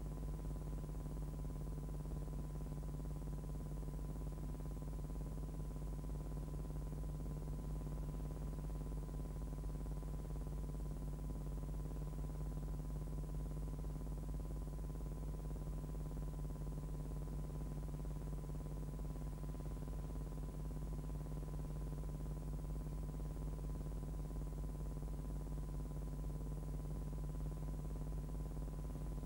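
Steady low electrical hum with a thin, steady high tone above it, unchanging throughout, with no other sound: line noise on the audio track of a silent film transfer.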